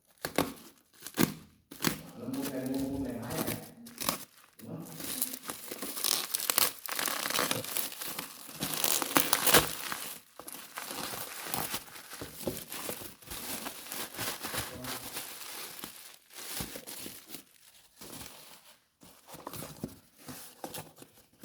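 Packaging being handled and torn open: irregular crinkling and ripping with sharp clicks, loudest about nine to ten seconds in.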